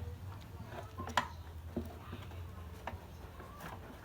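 Scattered light clicks and taps from small parts being handled while speakers are fitted into a miniature speaker box, with the sharpest click about a second in, over a low steady hum.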